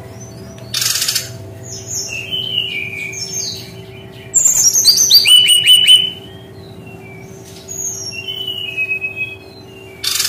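Brown-chested jungle flycatcher singing in varied high whistled and chirped phrases, with a short harsh rasp about a second in and a loud, rapid run of notes falling in pitch around the middle. A faint steady hum lies underneath.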